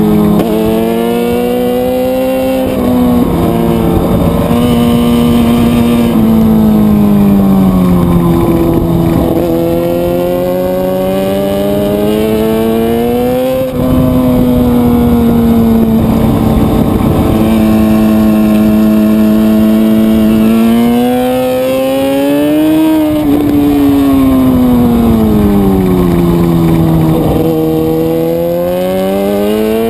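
Motorcycle engine running under way, its pitch climbing and falling again and again as the throttle is opened and eased off, with a brief drop in loudness about halfway through.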